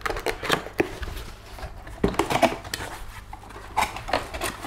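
Cardboard box being opened by hand: irregular scraping, rubbing and knocking of the cardboard as the flaps are worked open.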